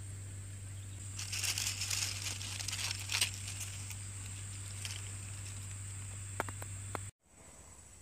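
Crackling and rustling of a leaf being handled, densest from about one to three seconds in, over a steady high thin drone and a low hum; a few sharp ticks follow, then the sound cuts off abruptly about seven seconds in.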